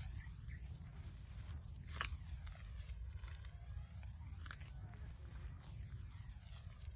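Footsteps crunching on dry grass, leaves and twigs, with scattered short snaps, the sharpest about two seconds in, over a steady low rumble on the microphone.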